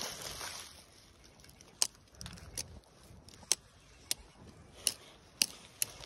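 Footsteps on dry leaf litter and twigs: a handful of sharp, irregular crunches and snaps, spaced about half a second to a second and a half apart, with a faint rustle in between.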